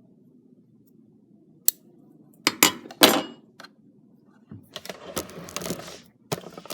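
Handling noise from threading a sewing machine: a few sharp clicks and taps, then a rustle lasting about a second, then more light clicks near the end.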